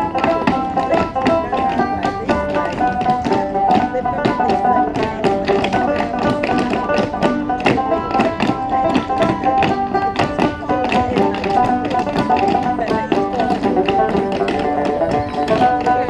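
Appalachian clogging: many dancers' shoes striking a wooden dance board in rapid, rhythmic taps. Lively live folk music on plucked strings plays under the taps.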